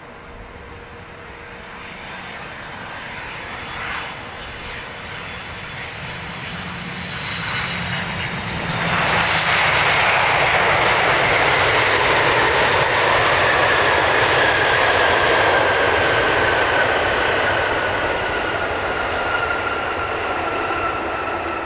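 Boeing 767-300ER airliner landing on its twin GE CF6-80C2 turbofans. The jet noise builds as it comes in, jumps to a loud roar about nine seconds in as it touches down close by, then eases off, with a high whine falling steadily in pitch as it rolls out and slows on the runway.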